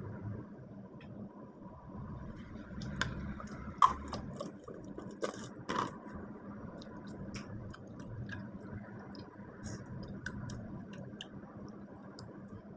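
Quiet sounds of eating mango with bagoong by hand: the paste squished onto the slices, and fingers handling the slices in a ceramic bowl, with a few sharp clicks and taps, the loudest about four seconds in. A faint steady hum runs underneath.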